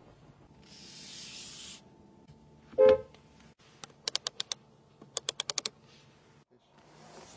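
The rotary climate-control knob on a Bentley Mulliner's centre console clicks through its detents in two quick runs of about six clicks each, about four and five seconds in. Before them comes a short, loud pitched tone about three seconds in, and a brief hiss near the start.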